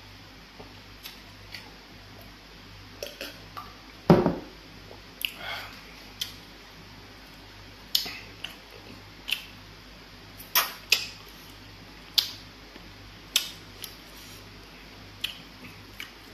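Close-miked eating sounds as fish is picked by hand out of egusi soup and eaten: irregular sharp wet smacks and clicks, roughly one a second, with a louder, deeper thump about four seconds in.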